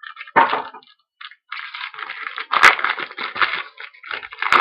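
Plastic wrapping on a sealed trading-card mini box crinkling and crackling as it is torn open, with a few sharp cracks: about half a second in, near the middle, and at the end.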